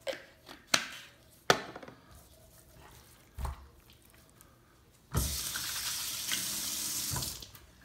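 A few sharp clicks as a spice jar is capped and set down on the counter, then a kitchen tap runs into the sink for about two seconds.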